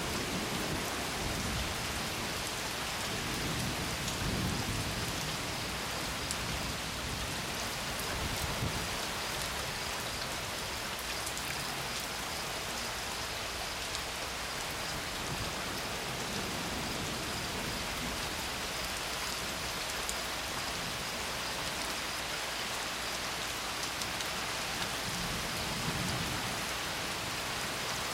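Steady rain pouring down on surfaces, with low rumbles of thunder swelling up several times.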